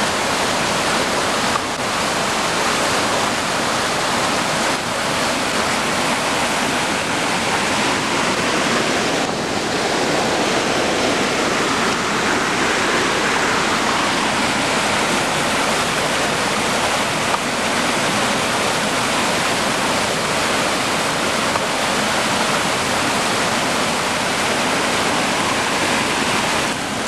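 River rapids rushing over rocks: a steady, unbroken rush of white water.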